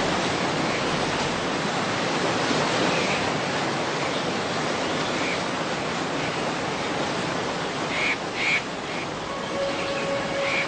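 Steady rush of water with a few short bird calls over it, two of them close together about eight seconds in.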